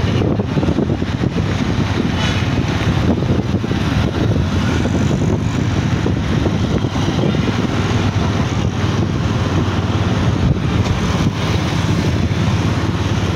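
Steady low rumble of a moving road vehicle with wind buffeting the microphone.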